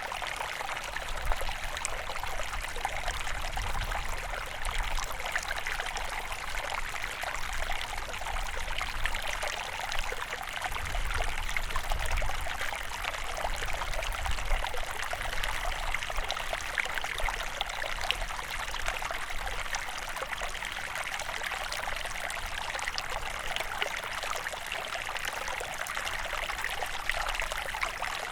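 Stream water flowing and trickling steadily, with a low rumble that comes and goes.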